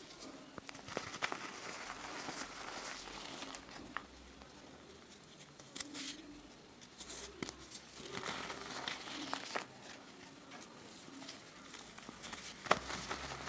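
Hands squeezing and crushing pieces of soft reformed green gym chalk with a slight crust, the chalk crunching and crumbling into powder with irregular sharp crackles; the sharpest snap comes near the end.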